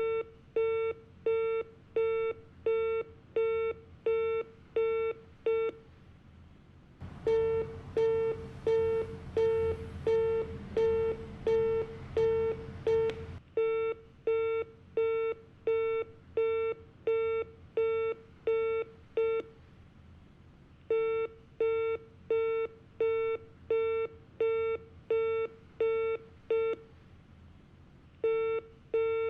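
Telephone disconnected-call tone: runs of short, evenly spaced beeps at one pitch, broken by brief pauses. A stretch of hiss and low hum sits under the beeps for several seconds about a quarter of the way through.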